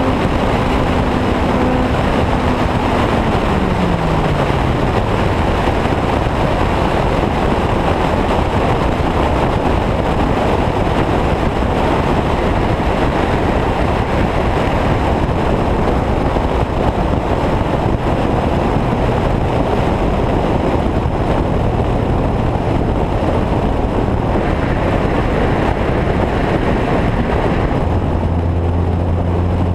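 Heavy wind rush and road noise on a camera mounted on the outside of a moving car at speed. An engine's steady note at first falls in pitch between about two and five seconds in as the revs drop, and near the end a low steady engine drone comes in.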